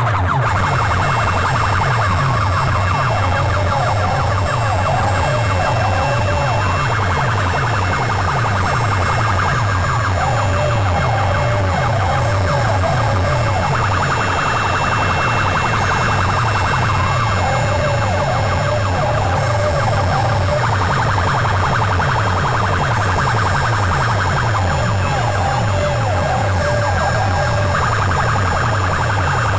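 DJ competition mix: a fast, heavy bass beat runs throughout, with a wailing, siren-like sample coming back about every seven seconds.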